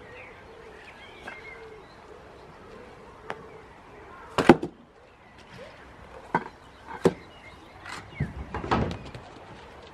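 Heavy paving slabs being lifted and set down, knocking against each other: one loud knock about halfway through, then several more knocks near the end.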